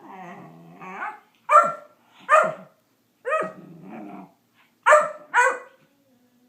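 Great Dane puppy barking in five short, high-pitched yaps, with low growling between them in the first second and again midway.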